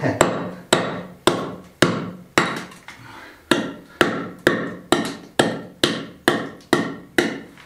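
A hammer striking the edge of a rough stone slab again and again, about two blows a second with a short pause around three seconds in, chipping pieces off to trim the stone to shape.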